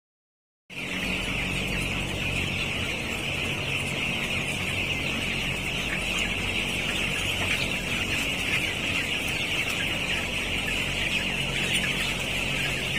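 Dense chorus of many young broiler chicks peeping together, starting abruptly just under a second in and going on steadily, over a steady low hum.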